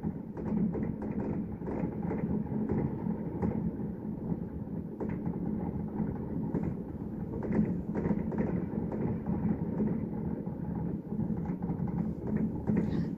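Distant fireworks going off in quick succession: many sharp pops and bangs overlapping over a continuous low rumble, with a steady low hum underneath.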